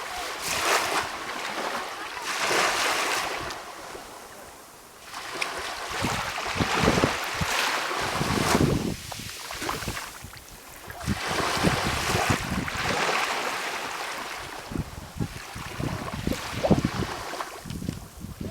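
Calm sea: small waves breaking and washing in, a hissing surge every few seconds that swells and falls back.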